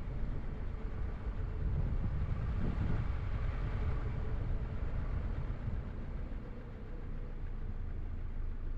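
Car driving: steady engine and road rumble with a faint even hum, swelling a little a few seconds in and easing slightly near the end.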